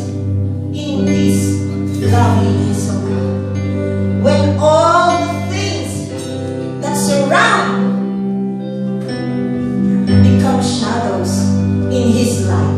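Worship song sung by a small group of singers over sustained electronic keyboard chords.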